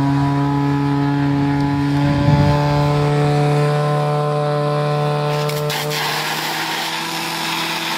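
Portable fire pump engine revved up and held at a high, steady speed. A hiss joins about six seconds in.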